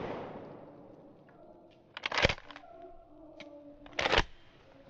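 Two short, sharp crunches in snow-covered brush, about two seconds apart, over the fading tail of a loud bang at the start.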